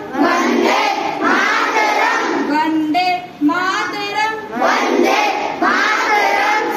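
A group of schoolchildren singing a prayer together, in phrases separated by short breaks.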